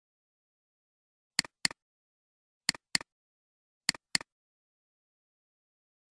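Computer mouse double-clicking three times, a little over a second apart. Each double-click is two short, sharp clicks, with dead silence between.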